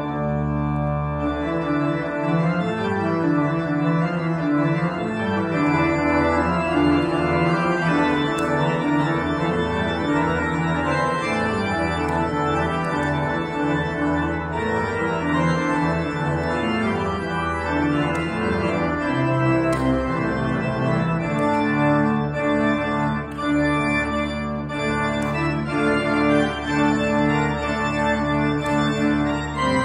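Church pipe organ playing full sustained chords, the notes changing from chord to chord over deep held bass notes.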